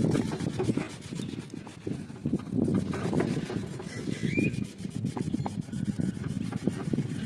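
Scrubbing a degreaser-soaked engine-bay surface by hand: an irregular rubbing and scraping with small clicks.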